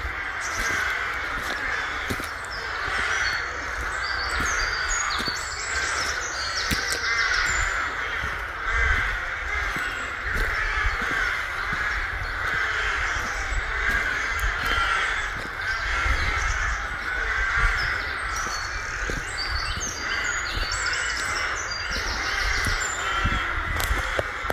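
Many crows cawing together in an unbroken din, with a few higher songbird notes over it and low rumble from wind or walking on the microphone.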